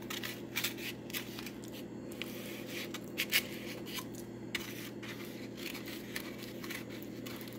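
A plastic spoon stirring and scraping a soft tuna-and-cheese mix against a foam bowl: irregular scrapes and clicks, a few sharper ones around three seconds in, over a steady low hum.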